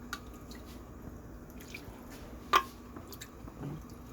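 Light kitchen clinks of cookware and utensils: a few small clicks and one sharper clink about two and a half seconds in, over a faint steady hum.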